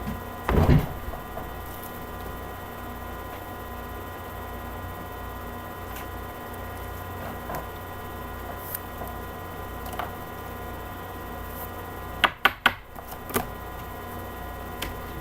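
Steady electrical hum made of several fixed tones, broken by a heavy thump about half a second in, a few faint clicks, and a quick run of three or four sharp clicks with a softer knock after them, about four-fifths of the way through.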